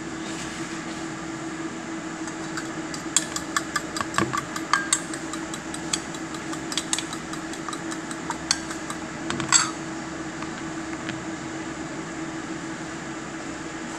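A utensil clicks rapidly against a stainless steel bowl, a fast run of taps about three seconds in followed by scattered clinks and a louder clatter near ten seconds. A steady hum sounds underneath.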